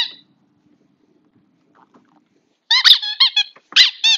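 A squeaky dog toy is squeezed: one short squeak right at the start, then a quick run of short high squeaks rising and falling in pitch, beginning a little before three seconds in.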